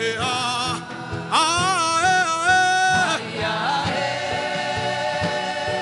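Gospel worship music: a voice sings long, wavering held notes over sustained keyboard chords and a steady low drum beat.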